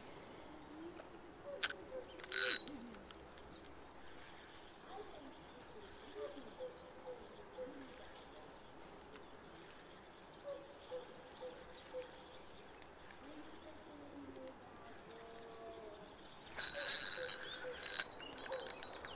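A bird calling in short, low notes, in runs of three or four, over faint river ambience, with two sharp clicks about two seconds in. Near the end a spinning reel starts winding in line with a whirring sound as the rod bends into a fish.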